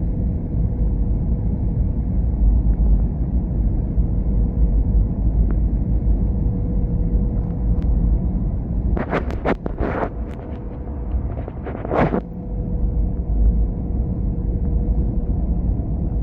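Airbus A320 rumbling steadily and low with a faint even hum, and a short run of clicks and rattles about nine to twelve seconds in.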